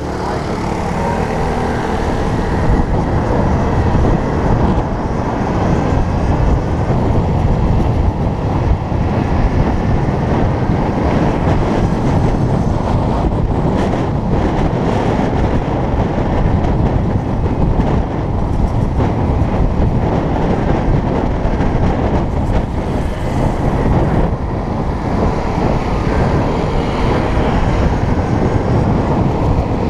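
Steady rushing, rumbling ride noise from an electric enduro motorbike moving along a street. It builds over the first few seconds as the bike pulls away, then holds steady.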